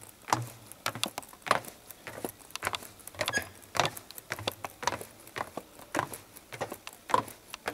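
Irregular clicking and scuffing, about two a second, with soft low thumps underneath.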